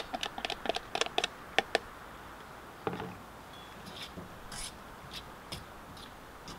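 Quick light tapping and rattling of a plastic tub as its crumbled contents are shaken out into a skillet, then a single knock and a few soft scrapes of stirring in the pan.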